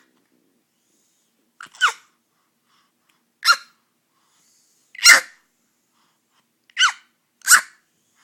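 A baby giving five short, high-pitched squeals about every one and a half seconds, each falling in pitch.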